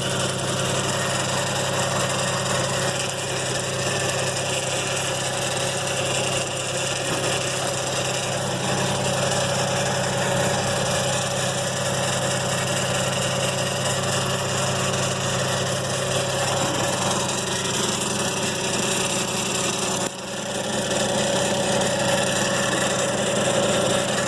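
BMW 335i idling on a cold start with a steady abnormal noise from its ZF 6HP21 six-speed automatic transmission, which the owner hears as coming from the front end.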